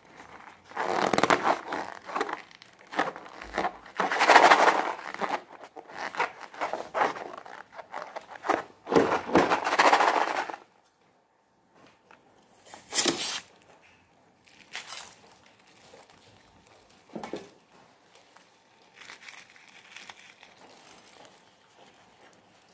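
Rubber balloon squeezed and rubbed in the hands, a crinkly rustling in bursts for about ten seconds. After a short pause comes one sharp snip of scissors cutting the balloon's neck, then a few faint handling sounds.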